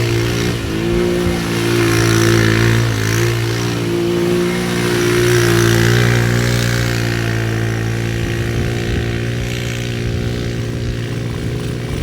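ATV engine running steadily, its pitch shifting slightly up and down in the first few seconds, then settling and getting a little quieter in the second half.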